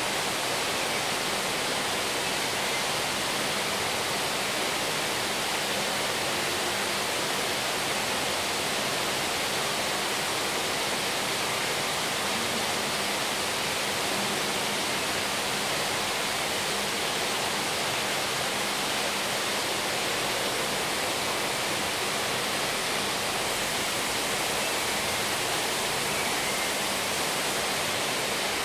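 Steady, even rushing noise with a faint low hum underneath; nothing stands out from it.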